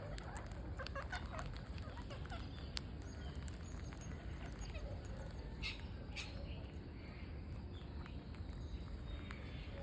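Green parrots feeding: scattered short squawks and chattering calls mixed with sharp clicks, over a steady low rumble.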